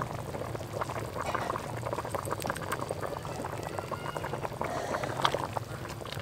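A large pot of curry boiling, bubbling steadily with many small pops, as a thin stream of white liquid is poured into it.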